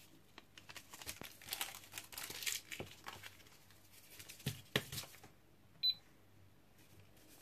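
Paper sachet crinkling and rustling as it is shaken out and handled, with a few sharp clicks. About six seconds in, a digital kitchen scale gives one short beep as its button is pressed.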